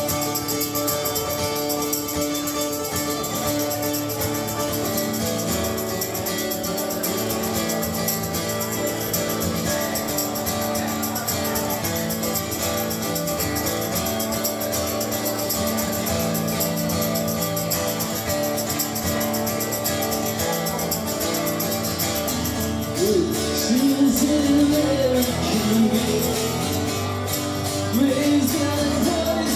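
Live rock band with electric guitars playing a song, recorded in the room. The band plays instrumentally at first, and a man's lead vocal comes in about 23 seconds in.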